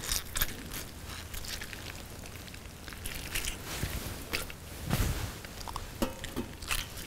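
Soaked gelatine leaves being squeezed out by hand and dropped into a Thermomix bowl of syrup: scattered small wet handling sounds and clicks, with a dull thump about five seconds in.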